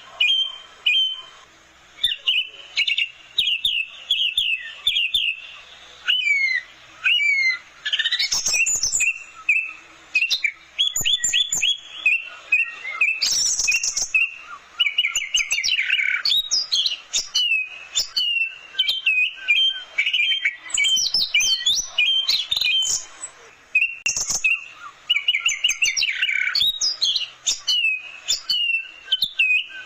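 Orange-headed thrush (anis merah) singing a long run of fast, varied phrases of sweeping whistles and trills, with short pauses between them.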